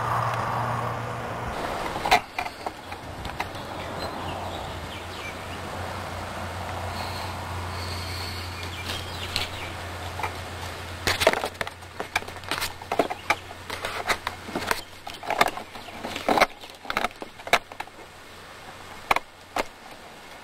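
Handling noise from a camcorder on the end of a long pole: a steady low hum, then from about halfway through an irregular run of sharp knocks and scrapes as the camera and pole bump against the tree trunk.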